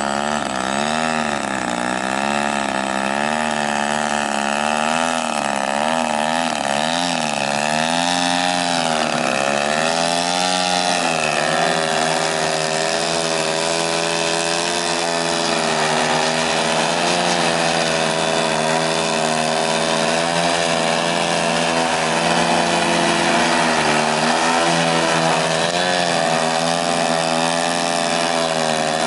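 Two large-scale radio-controlled aerobatic planes' two-stroke gas engines running together, their pitch rising and falling with the throttle as the planes hover nose-up.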